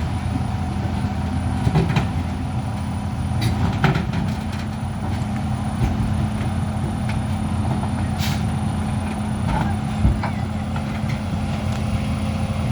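Heavy diesel machinery running steadily with a deep engine hum, broken by a few sharp metallic knocks and a short hiss about eight seconds in.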